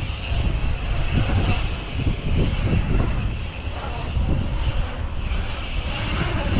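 Wind rumbling on the microphone, mixed with a mountain bike's tyres rolling and carving on a concrete skatepark bowl.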